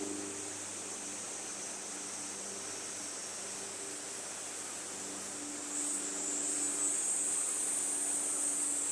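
Insect chorus: a steady high-pitched buzz that grows louder about six seconds in.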